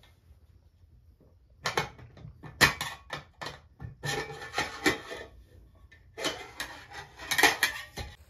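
A stainless steel cooking pot and its metal lid being handled, making a run of sharp clinks and knocks in three clusters. Among the loudest come as the lid is lifted off the steaming pot near the end.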